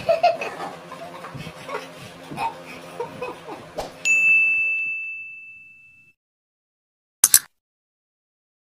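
Two people laughing, then a single bright ding sound effect about four seconds in that rings and fades away over about two seconds. A short burst of noise follows near the end.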